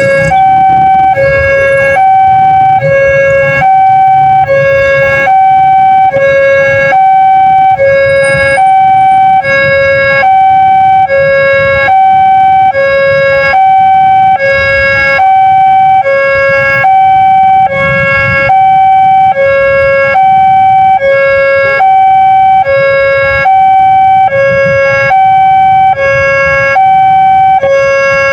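Railway level-crossing warning siren sounding a steady two-tone alarm, a high and a low tone alternating about once a second.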